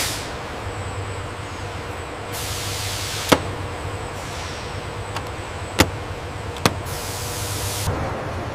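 Workshop tool and machinery sounds: a steady low hum with a sharp knock at the start, two hisses of about a second each, and three sharp clicks in the second half.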